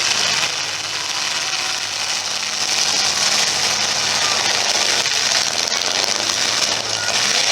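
Demolition derby cars' engines running together under a loud, steady, noisy din.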